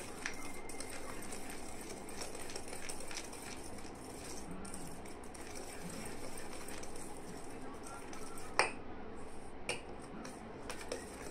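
Wire whisk beating flour into cake batter in a stainless steel bowl: steady scraping with light ticks of the wires against the metal, and two sharper clinks about a second apart, two-thirds of the way through.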